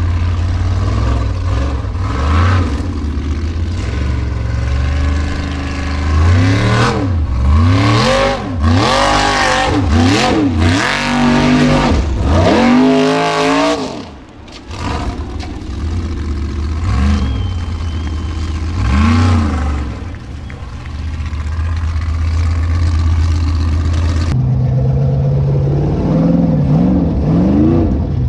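Formula Offroad buggy's engine running steadily, then revved hard in repeated rising-and-falling bursts as it claws up a steep dirt bank, dropping off briefly midway. Near the end the engine is heard from on board, revving again.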